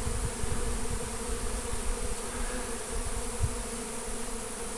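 Many honey bees flying and buzzing in a steady hum, driven into the air by Bee Quick repellent sprayed on their colony.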